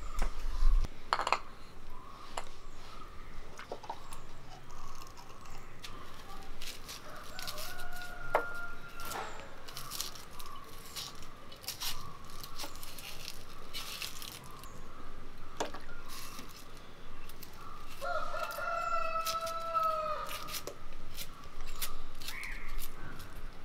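Rooster crowing twice, a faint crow about eight seconds in and a louder, longer one near the end. Under it come scattered crisp clicks and rustles of shallot skins being peeled with a knife.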